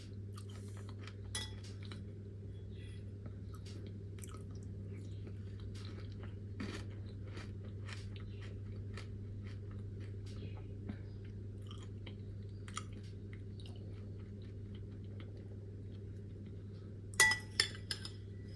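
Close-miked chewing of crunchy freeze-dried fruit, with many small crackles and crunches. A few sharp clinks come near the end.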